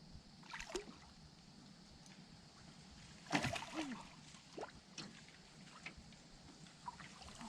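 Water splashing and sloshing as a hooked fish struggles at the surface while being fought in, with a few sudden splashes, the loudest about three seconds in.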